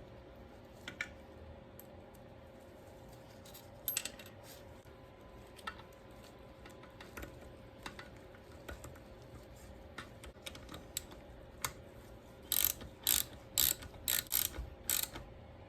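Small metal clicks and clinks of hand tools and parts during work on a motorcycle transmission, then a quick run of about eight sharp, louder clicks near the end.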